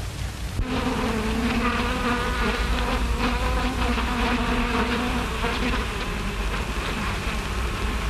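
A swarm of bees buzzing: a steady droning hum, slightly wavering in pitch, that sets in about half a second in.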